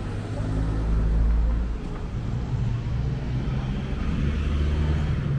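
A car engine running close by, a low hum that is loudest about a second in and then carries on steadily.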